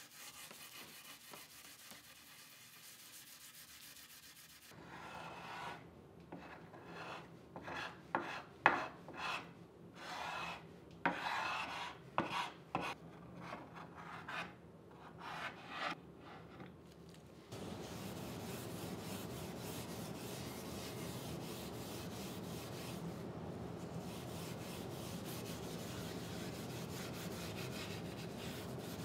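A brush and gloved hands scrubbing chemical paint stripper over the painted wooden frame of a chair. It starts with soft rubbing, then brushing in irregular, uneven strokes, and about two-thirds of the way through it changes to a steady, even rubbing hiss.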